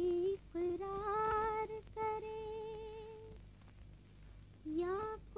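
Female voice singing a wordless melody in long held notes with vibrato, in several phrases with short breaks; a rising glide near the end leads into the next phrase.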